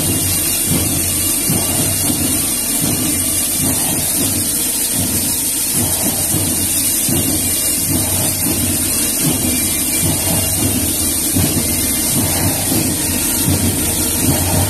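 Marching band drums playing a beat, loud and heavy on the low end. The sound is overloaded and blurred, so the hits run together into a rumble.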